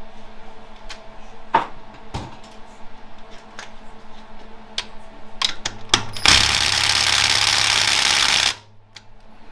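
Metal parts clinking and knocking on a workbench, then a pneumatic air tool runs loudly for about two seconds and cuts off.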